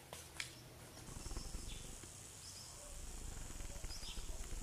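Faint outdoor background with a steady high-pitched insect buzz, like a cricket or cicada, that starts about a second in, and a couple of faint short chirps.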